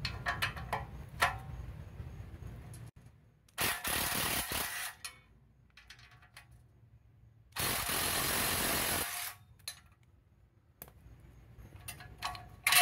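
Cordless drill with a socket spinning nuts off the vibration absorber on a BMW E46 muffler, in two bursts of a second or so each. A few metal clinks come at the start and again just before the end.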